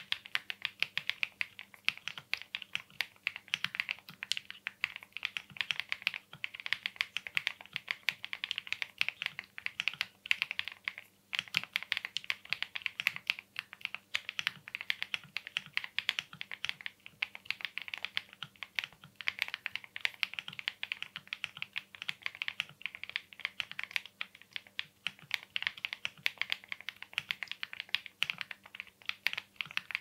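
Continuous fast typing on a Zoom75 mechanical keyboard with stock factory-lubed BSUN Taro N Sweet Potato linear switches on heavy springs, a polycarbonate plate and MW Calico keycaps. It is a dense run of keystrokes, with a brief pause about eleven seconds in.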